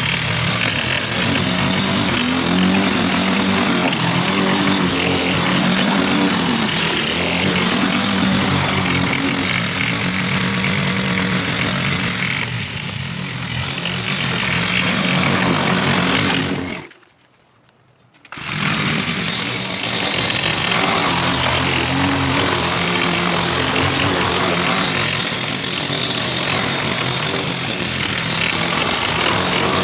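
Gasoline lawn mower engine running steadily while mowing, its pitch wavering slightly as the load changes. The sound drops out abruptly for about a second and a half past the middle, then comes back.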